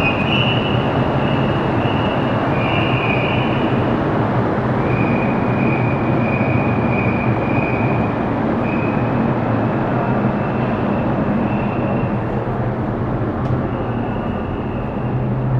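Steady, loud rumble of a car ferry's machinery heard on its enclosed vehicle deck, with a low hum and a faint high whine on top.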